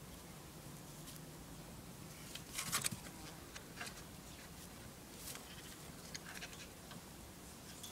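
Faint rustling and crackling of hay and wood shavings as rabbits move and nibble in their hutch, with a short burst of crackling about two and a half seconds in and scattered light clicks after.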